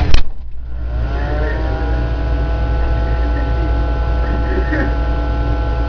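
An electric appliance motor switched on with a click, spinning up over a second or two to a steady humming whine with a strong mains hum underneath.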